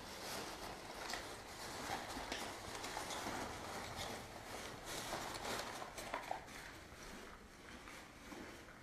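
A dog rooting through a cardboard box of crumpled newspaper with its head and nose, hunting for hidden treats: paper rustling and crinkling, with many scattered light clicks and taps. It grows quieter near the end.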